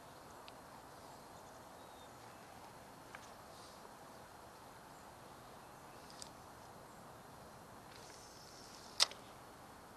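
Quiet outdoor ambience: a soft even hiss with a few faint high chirps and several small clicks, the sharpest one about nine seconds in.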